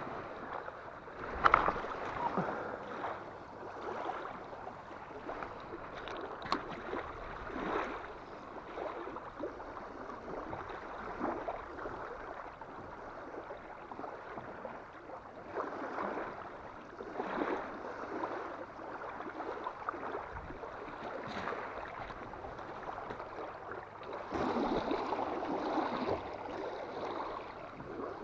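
Choppy water splashing and lapping at the shoreline in a strong wind, swelling and easing every few seconds. There is a brief louder knock about a second and a half in.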